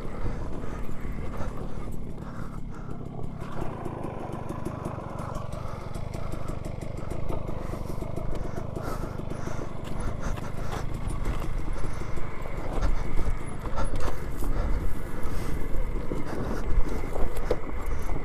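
Electric dirt bike (Alta Redshift MXR) riding down a steep, rutted dirt-and-rock descent: a steady rumble with tyres crunching and the chassis rattling and knocking over stones, and a faint steady high whine. It gets rougher and louder past the middle.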